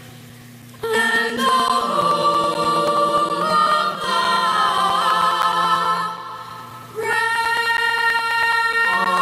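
A choir singing the national anthem a cappella, in long held phrases: the voices come in about a second in, fade near six seconds, and take up the next phrase about a second later.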